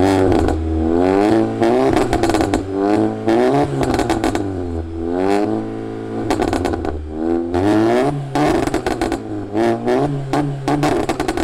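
A 2017 VW Golf GTI's turbocharged 2.0-litre four-cylinder is revved over and over through its stock exhaust. The pitch rises in a series of quick blips and falls back between them.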